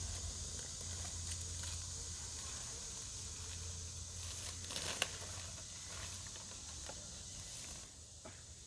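Traxxas TRX4M RC crawler climbing a dirt hill: faint crackling and rustling of its small tyres working over dirt and debris, with a sharp click about five seconds in.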